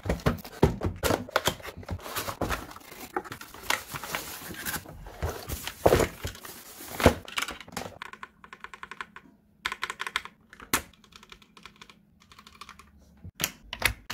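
Typing on a Vooka BLIC K50 mechanical keyboard with red switches: dense, rapid keystrokes for about eight seconds, then quicker, lighter bursts of key clicks with short pauses.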